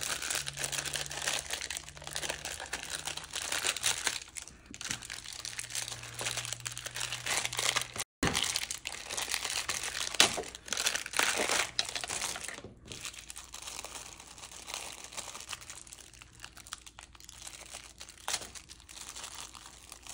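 Plastic packaging crinkling and crackling as it is handled, a dense run of small crackles that is loudest about ten to twelve seconds in and thins out toward the end. The sound drops out completely for a moment about eight seconds in.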